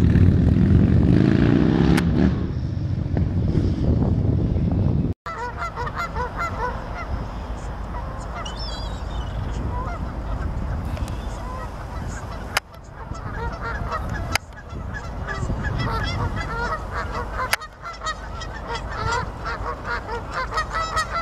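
A low rumble with a rising tone for about five seconds, cut off suddenly. Then a large flock of gulls calls, with many short cries overlapping.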